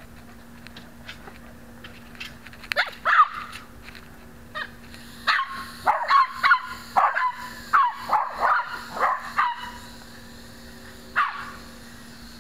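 Small dog yipping and yelping in short high-pitched calls: a pair about three seconds in, a quick run of about ten from about five to ten seconds, then one more near the end.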